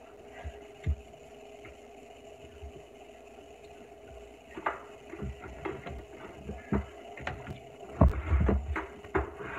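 Kitchen handling noises from food preparation: scattered clicks, scrapes and knocks from peeling sweet potatoes and handling a turkey in a foil roasting pan, over a steady faint hum. A cluster of louder low thumps comes about eight seconds in, and a sharp knock comes at the very end.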